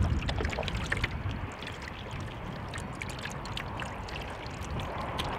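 Water splashing and lapping against a paddled wooden canoe in choppy water, with wind rumbling on the microphone.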